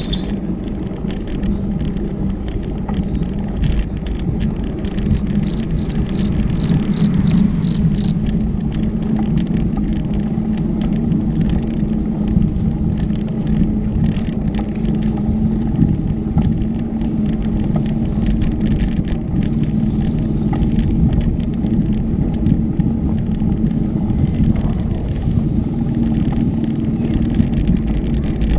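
Steady riding noise from a bicycle on the road: wind and tyre rumble with small rattles. About five seconds in, a run of about eight high, evenly spaced chirps sounds over it for some three seconds.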